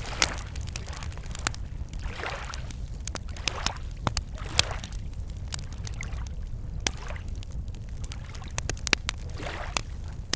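Campfire crackling with frequent sharp pops, over small waves lapping against a lake shore in slow swells every few seconds, with a steady low rumble underneath.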